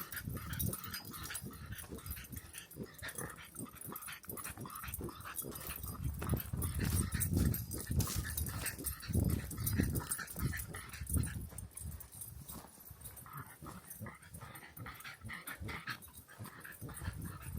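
A dog whimpering, over many short footstep-like clicks and uneven low gusts of wind on the microphone.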